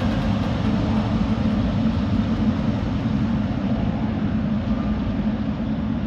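Boeing 777 jet engines running, a steady rumble with a low hum that eases slightly near the end.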